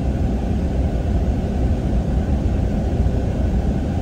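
Steady low rumble of a car on the move, road and engine noise heard from inside.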